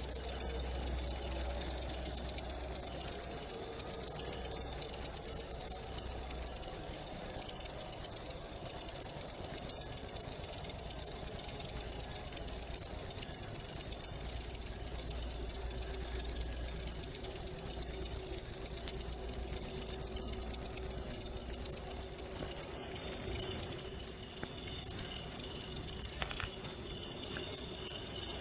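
Cricket chirping in a high, rapidly pulsed trill without pause.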